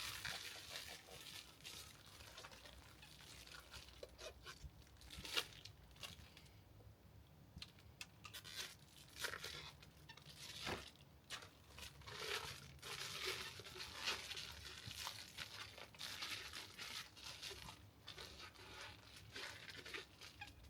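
Plastic shrink bags crinkling and rustling as they are handled, in irregular bursts with a few sharp clicks.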